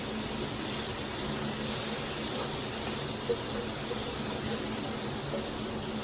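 Onions and butter sizzling in a frying pan with steak juices, a steady hiss.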